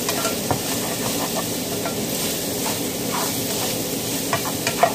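Thin-sliced steak sizzling in a hot skillet while a spatula stirs and scrapes it, with scattered light knocks of the utensil against the pan and one louder knock near the end.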